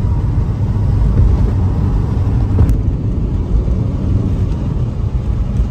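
Inside the cabin of an Alfa Romeo GT 1.9 JTDM while it drives along: the four-cylinder turbodiesel and the tyres make a steady low rumble. There is a single brief click about two and a half seconds in.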